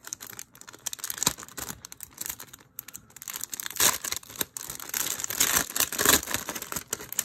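Thin clear plastic packaging bag crinkling as hands unwrap a planner insert from it, a run of crackles that is loudest about four seconds in and again near six seconds.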